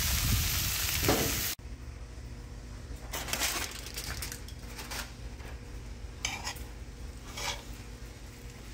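Green beans and onion sizzling in a cast-iron skillet, stirred with a metal spatula that scrapes the pan several times. A louder hiss in the first second and a half cuts off abruptly, leaving a quieter sizzle.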